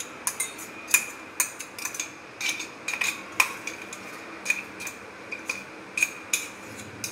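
A steel spoon tapping and scraping inside a stainless steel mixer-grinder jar to knock a ground peanut mixture out over a steel bowl: a run of irregular metallic clinks, about two a second, each with a short ring.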